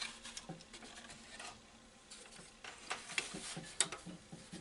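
Faint, scattered light clicks and taps from handling the old radio's chassis.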